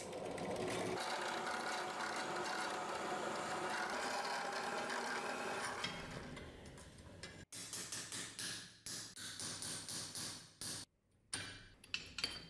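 Drill press running and drilling out the old rivets through the sword's aluminium handle, a steady mechanical drone for about six seconds. It then gives way to a run of short, uneven knocks and scrapes as the loosened handle is worked.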